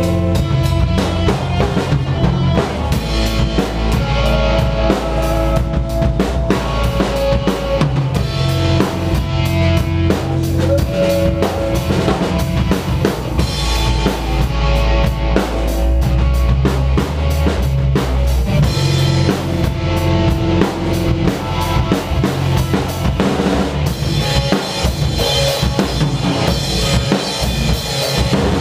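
A rock band playing: a drum kit with kick drum and snare drives the beat, loudest in the mix, under electric guitars.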